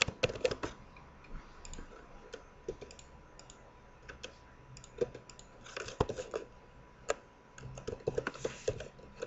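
Computer keyboard being typed on, keystrokes in short irregular bursts with pauses between.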